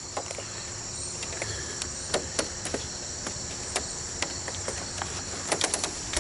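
Steady outdoor chorus of crickets, a constant high-pitched trill, with scattered sharp clicks and taps throughout that come faster near the end.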